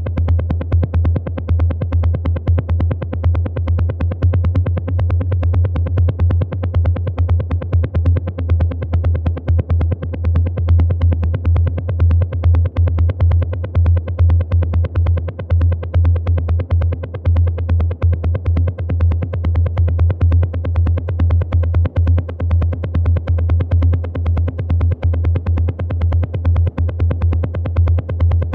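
Techno played live on a Roland TR-8 drum machine: a heavy, steady low kick and bass under a fast, dense pattern of hi-hat ticks.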